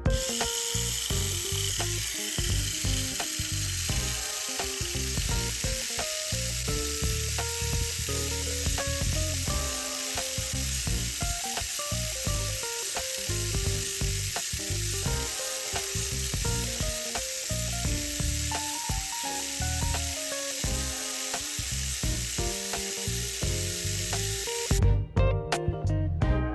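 Tamiya Mini 4WD on an MS Flexi chassis running, its motor and gears giving a steady high whirring hiss that cuts off near the end with a few clicks. Background music plays under it.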